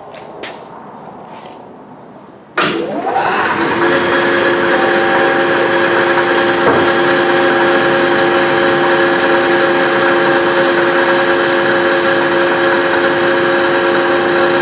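A few light clicks, then about two and a half seconds in a DoAll vertical bandsaw is switched on: its motor comes up to speed with a rising whine and then runs steadily, blade running free at about 140 feet per minute.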